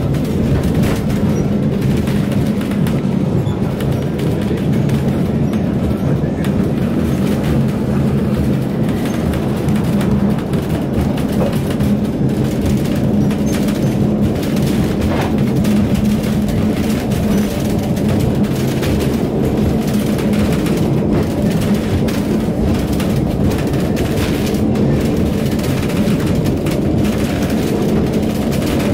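Old wooden Lisbon tram car running along its rails, heard from inside the cabin: a steady low rumble and hum with continual small rattles and clicks.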